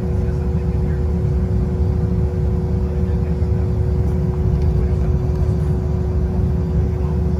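Cabin noise of a Cessna Citation CJ3 taxiing on its Williams FJ44 turbofans at low power: a steady low rumble with two steady hums above it.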